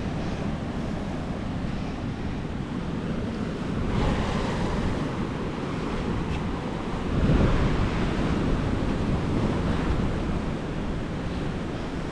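Rough sea surf: high Indian Ocean waves breaking and washing over coral rocks, with wind buffeting the microphone. A wave surges about four seconds in, and the loudest crash comes a little after seven seconds in.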